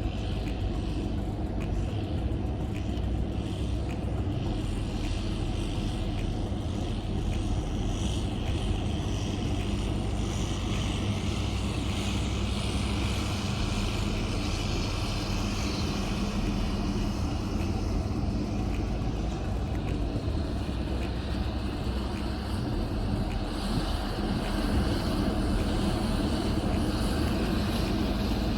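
A diesel engine running steadily, an even drone with no breaks or sudden knocks.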